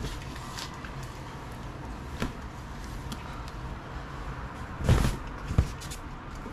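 Handling noise from unpacking a cardboard box of fabric: a few knocks and thumps, the loudest about five seconds in and another sharp one just after, over a low steady hum.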